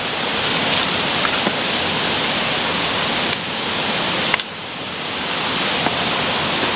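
Steady rushing noise of water, with two sharp clicks about three and four and a half seconds in.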